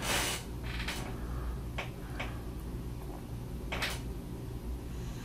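Handling noises from an open glass pickle jar: a short rustling swish at the start, then a few short clicks and knocks as fingers reach into the jar for a pickle chip, over a steady low hum.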